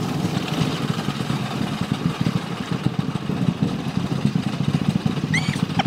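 Roller coaster car running along its track: a loud, uneven rumble. A few short, high, rising squeals come near the end.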